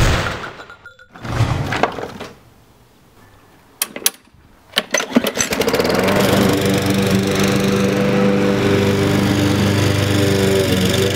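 Gas push lawn mower's small engine: after a few short sharp rattles it starts about six seconds in, rises, and then runs steadily. At the very start, the tail of a gunfire sound effect dies away.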